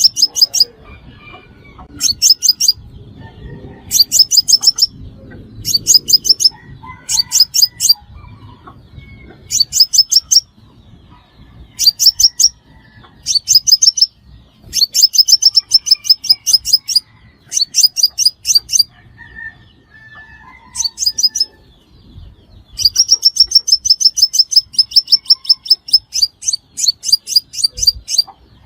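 Sunbird calling in rapid trains of sharp, high, clicking notes. Each burst lasts about half a second to a second and comes every one to two seconds, with longer runs a little past the middle and again near the end.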